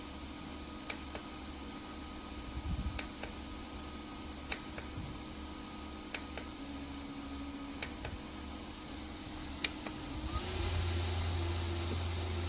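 Small rechargeable bladeless stroller fan running with a steady hum and hiss, with sharp ticks every second or so. About ten seconds in it gets louder and its hum rises a little in pitch.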